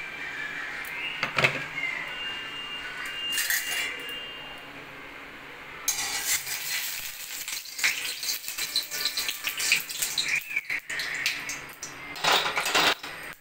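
Steel utensils clink against a steel kadai. About six seconds in, a steady hiss with fine crackling starts suddenly as the gas burner under the kadai is lit, with more clattering of metal near the end.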